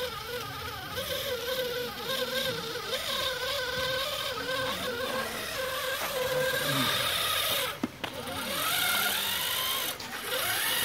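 Drive of a scale RC Mercedes-Benz Actros 4x4 tipper truck whining as it crawls along under load, the pitch rising and falling with the throttle. The sound dips briefly about eight seconds in and again about ten seconds in.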